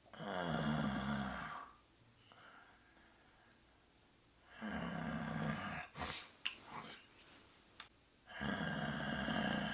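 A person snoring: three long snores about four seconds apart, each with a low buzz, with a couple of short clicks between the second and third.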